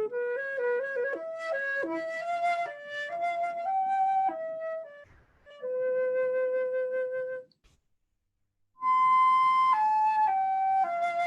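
Flute playing a slow melody, one note at a time, with a long held note past the middle and a break of about a second before the next phrase begins.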